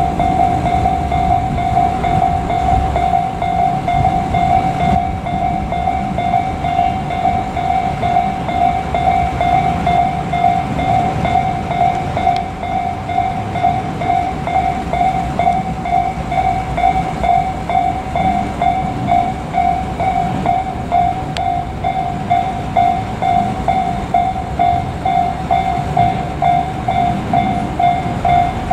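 Japanese level-crossing warning bell ringing a steady, evenly repeated electronic ding, over the low rumble of a train on the line.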